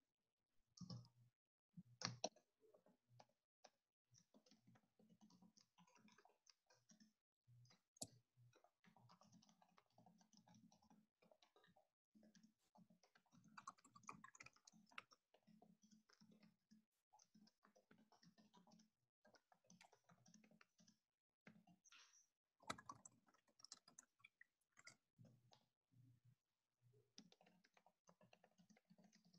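Faint typing on a computer keyboard: quick, irregular key clicks, with a few louder taps about two seconds in and again later on.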